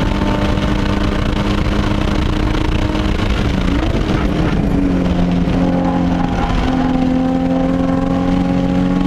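Nissan 350Z track car's V6 engine pulling hard under load as heard from inside the cabin, over steady road and wind noise. The note holds steady, breaks about four seconds in, then the revs climb slowly again.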